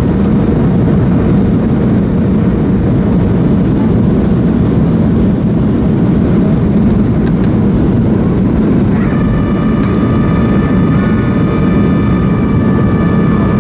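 Steady roar of a Boeing 737-300 in flight, heard from inside the cabin: airflow and CFM56-3 engine noise. About nine seconds in, a steady high whine of several pitches starts and holds.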